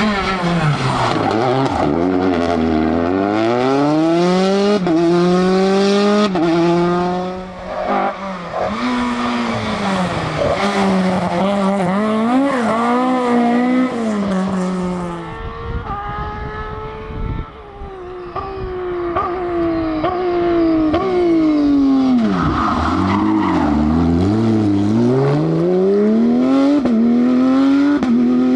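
Rally cars driven hard. The engine note climbs and drops again and again with gear changes and lifts, and swoops down sharply as a car passes close, with tyre squeal.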